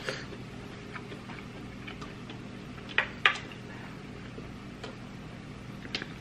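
Close-miked eating sounds: chewing with small scattered mouth clicks and two sharp smacks about three seconds in, over a steady low room hum.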